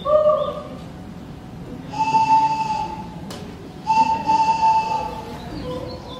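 Whistle notes: a short steady note at the start, then two held notes of about a second each at the same pitch, about two and four seconds in, with a sharp click between them.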